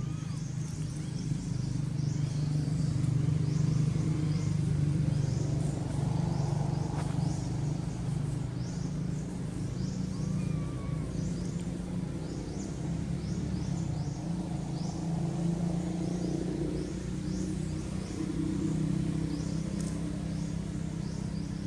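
Steady low rumble of motor vehicles, swelling and easing a few times, with a short high chirp repeating about once a second over it.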